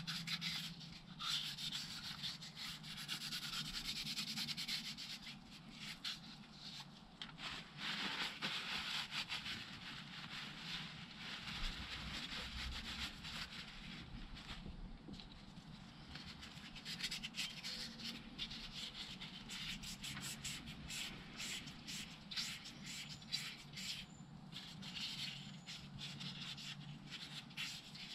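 Very fine wet-and-dry abrasive paper wetted with paraffin rubbed by hand over a metal suspension pin: a continuous rasping hiss made of many short back-and-forth strokes.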